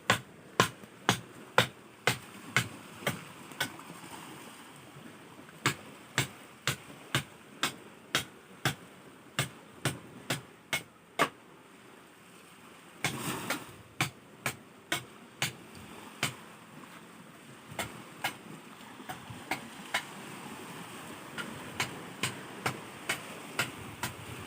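Repeated sharp knocks from a hand tool striking the boat during hull and engine-mount work, about two a second, in runs broken by short pauses.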